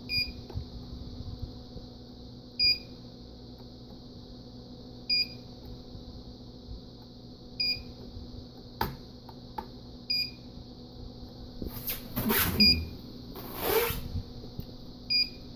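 Short electronic beep repeating evenly, about once every two and a half seconds, over a steady high hiss and low hum. A sharp click comes about midway, and rustling handling noise follows near the end.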